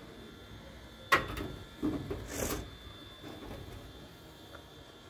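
A sharp knock about a second in, then a smaller knock and a short scraping hiss, from someone climbing on a stack of hollow clay bricks against a wall.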